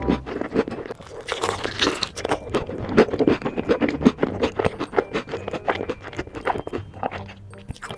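Close-miked crunching of crispy fried chicken being bitten and chewed, in rapid, irregular crunches.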